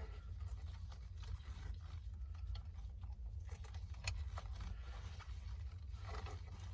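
Faint scattered clicks and light handling noise from steering-wheel parts being fitted, with one sharper click about four seconds in, over a steady low rumble.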